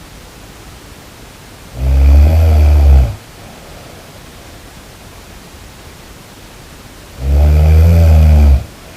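Snoring: two loud, low snores about five and a half seconds apart, each lasting just over a second, over a steady background hiss.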